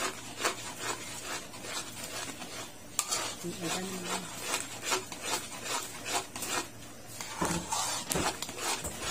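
Metal spoon stirring and scraping thick maja blanca, a cornstarch-and-milk pudding, around a metal pan as it cooks. The scrapes come about two to three a second.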